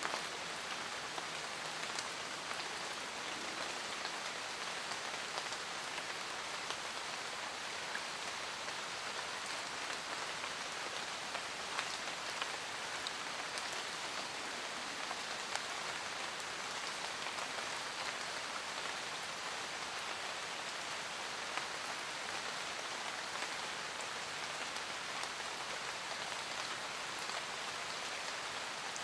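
Steady rain, with scattered individual drops ticking on a hard surface.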